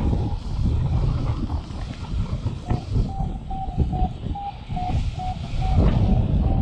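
Wind buffeting the microphone in paraglider flight. From about two and a half seconds in, a variometer beeps short tones about two and a half times a second, signalling a weak climb in a thermal.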